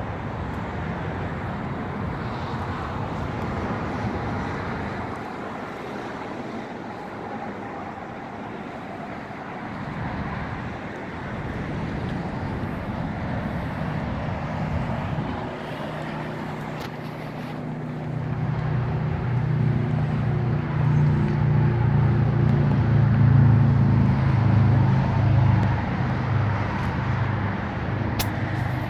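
2018 Triumph Bonneville T100's 900 cc parallel-twin engine idling steadily, its low rumble growing louder about halfway through.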